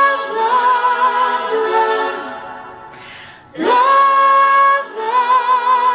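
A woman singing solo: two phrases of long held notes with vibrato, with a quick breath between them about three seconds in.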